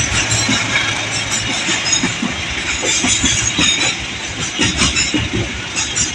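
A passing train's wheels clacking over the rail joints over a steady rumble, the knocks coming in quick irregular clusters.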